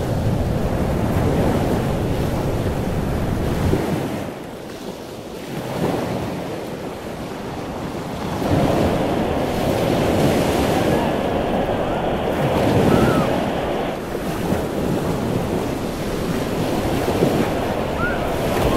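Ocean surf breaking and washing through the shallows, with wind rumbling on the microphone. The rush of water dies down about four seconds in and builds again from about eight seconds as the next waves break.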